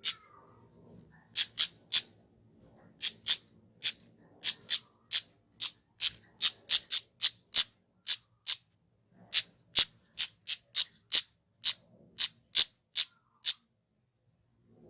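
Flowerpecker (kemade) giving a series of short, sharp, high-pitched call notes, unevenly spaced at about two or three a second, stopping about a second and a half before the end.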